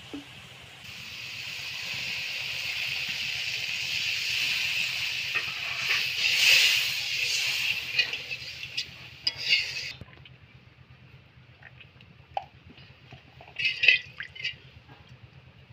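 Hot oil sizzling in a metal karahi as ground spice paste cooks in it, a steady hiss that swells to its loudest about six to seven seconds in and cuts off at about ten seconds. After that a metal spatula scrapes and clinks against the pan as the paste is stirred, the loudest clinks near the end.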